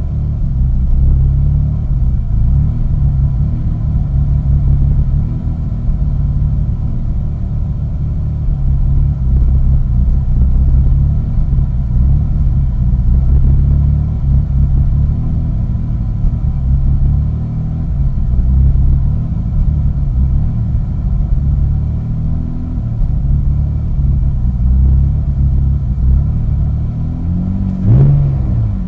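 2001 Mitsubishi Eclipse GT's 3.0-litre V6 idling roughly, with a low, uneven rumble that keeps wavering in level. This is the rough idle the owner reports at cold start. A short thump comes near the end.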